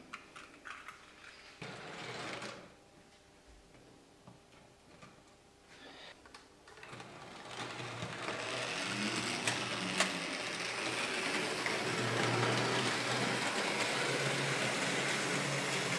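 A few light clicks as a model railway coach is set on the track, then from about seven seconds a Märklin model train runs on metal M-track: a steady whirring rumble of the locomotive's motor and wheels that builds and then holds.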